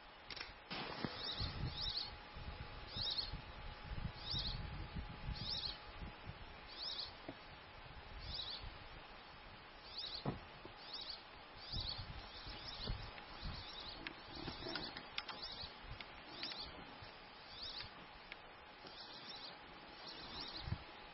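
A bird chirping in short, high notes, roughly once a second, over an irregular low rumble of wind on the microphone and a faint steady hum.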